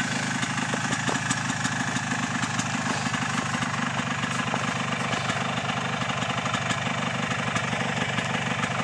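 ATV (quad) engine idling steadily, with a fast even firing beat and no revving.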